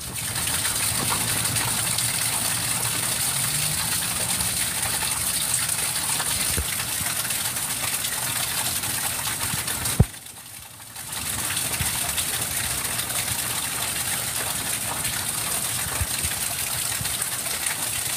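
Rain pouring down in a thunderstorm, a steady dense hiss. Just after the halfway point it cuts out abruptly with a click for about a second, then returns.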